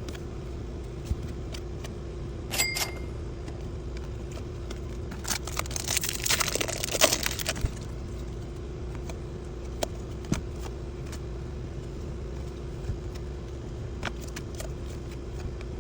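Rustling, scraping handling noise of a baseball card pack and its cards, loudest in a burst of crinkling about five to eight seconds in. There are scattered clicks, all over a steady low hum.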